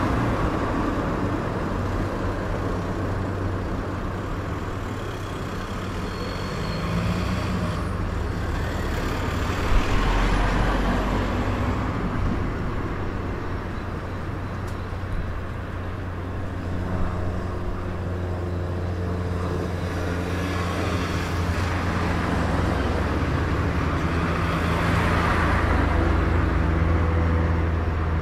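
Street traffic: a steady low engine rumble with cars passing, swelling about ten seconds in and again near the end.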